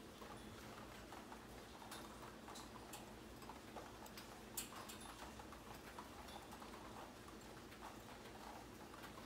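Light rain falling outside an open window: a faint steady hiss with irregular drops tapping, and one sharper tap about four and a half seconds in.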